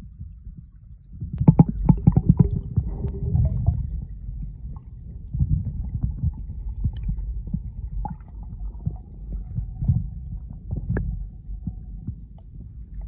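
Muffled sound of water recorded with the microphone under the sea: a low rumble of moving water, with a cluster of knocks and clicks between about one and a half and two and a half seconds in and a few single knocks later. A faint steady hum sounds through the middle.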